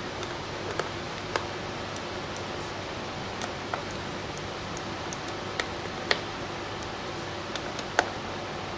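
Scattered sharp clicks and ticks of a screwdriver and metal parts as the cooler's mounting screws are fastened, about six over several seconds with the loudest near the end, over a steady background hum and hiss.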